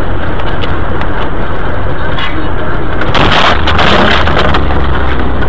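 Dashcam car interior with steady road and engine noise, then about three seconds in a loud crash, lasting over a second, as something strikes the car's windshield.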